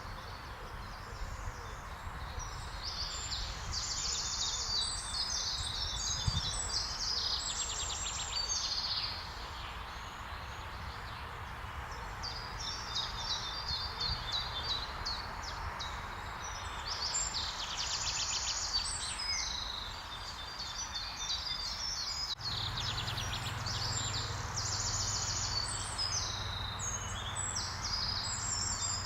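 Eurasian nuthatch singing: phrases of fast, high repeated notes in trills, one after another, over steady background noise. A low hum joins about three quarters of the way through.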